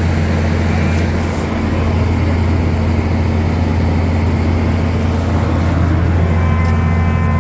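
Engine of a harvest machine running with a steady, loud low drone. A faint higher whine joins in near the end.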